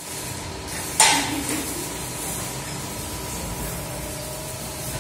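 Steady workshop background hiss and hum, with one sharp knock about a second in.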